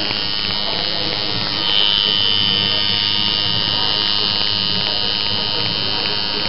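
Coil tattoo machine buzzing steadily as its needle works into the skin. The buzz turns a little louder and sharper about one and a half seconds in.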